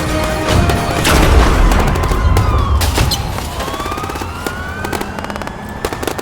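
A loud boom with a long low rumble, overlaid by rising and falling siren-like tones, giving way to fast, evenly spaced gunfire-like cracks, like automatic-weapon fire, in the second half.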